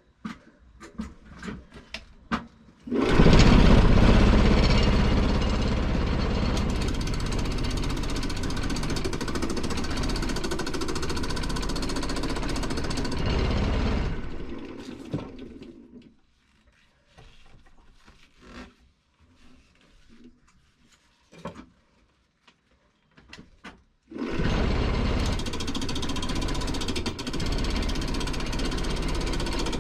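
A flat scraper cutting a rough, out-of-round pine log spinning on a wood lathe, a loud, rough, chattering cut. It stops about 14 s in, fading out, leaving a quiet stretch with a few small clicks, and starts again about 24 s in.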